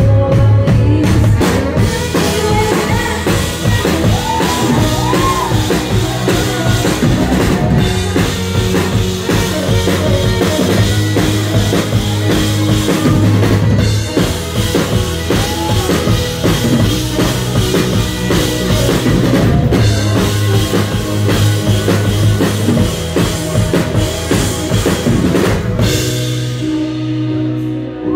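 Live indie-pop band playing with a driving drum-kit beat under electric bass and keyboard. About two seconds before the end, the drums stop and only held lower notes carry on.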